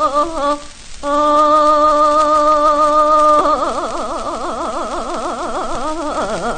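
A woman singing Seodo sori, the northwestern Korean folk singing style, heard from an old Victor gramophone record. After a short break for breath she holds a long steady note, then shakes the next long note with a wide, fast vibrato, and drops in pitch near the end.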